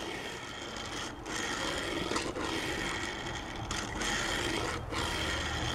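Plastic glow-in-the-dark wheels of a Hot Wheels Speedbox die-cast toy van rolling on a flat surface as it is pushed back and forth by hand: a steady rolling rasp broken by short pauses about every second.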